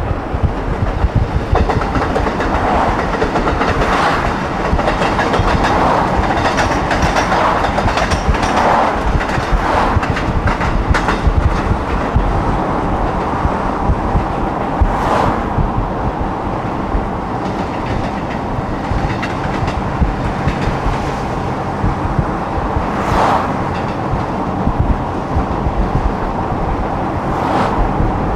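Steady rumble and wind noise of a car driving at speed, heard from inside the moving car, with a handful of sharp knocks spread through it.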